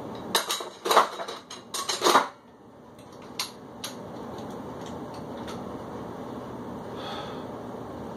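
Metal plate-loaded dumbbells clanking as they are set down: a quick run of sharp metallic clinks and knocks in the first two seconds or so, the loudest about a second in and just after two seconds, over a steady background hiss.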